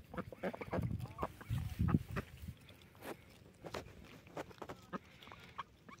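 Domestic ducks feeding at close range: short, low quacking calls mixed with quick clicking pecks, busiest in the first two seconds and then scattered and sparser.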